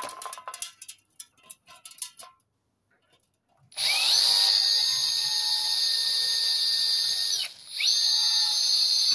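A few light handling clicks, then about four seconds in a cordless drill spins up and runs with a steady high whine as its bit bores a pilot hole into a galvanised steel patio post. Near the end it winds down briefly and spins back up.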